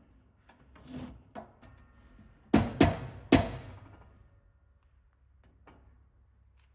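A few sharp knocks: two fainter ones about a second in, then three loud ones in quick succession, each ringing briefly.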